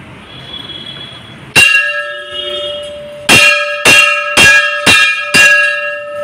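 Large hanging temple bell struck by its clapper: one strike, then after a pause five more at about two a second, each ringing on into the next.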